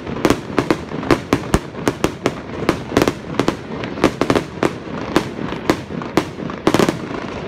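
Aerial firework shells bursting in a rapid, uneven string of bangs, about two or three a second, with a rumble filling the gaps. A heavier cluster of bursts comes near the end.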